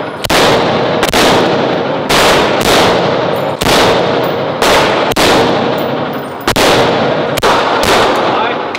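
Rifle shots fired one at a time, about nine in all, spaced unevenly half a second to a second and a half apart, each with a long echo in an indoor range.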